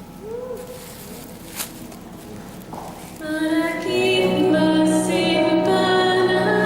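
Live female vocal with electric keyboard accompaniment: soft held keyboard notes for about three seconds, then the voice and fuller keyboard chords come in loudly.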